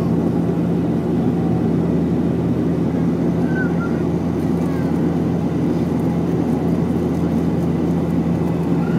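Steady drone of an airliner's engines in flight heard inside the cabin: an even rushing noise over a constant low hum.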